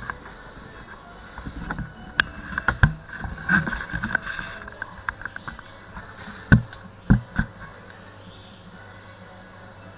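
Camera handling noise: scattered rubbing, clicks and knocks, with two louder thumps about half a second apart a little past the middle.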